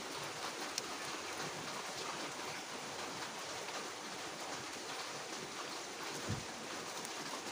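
Steady rain falling, a constant even hiss, with a sharp tick about a second in and a low thump near the end.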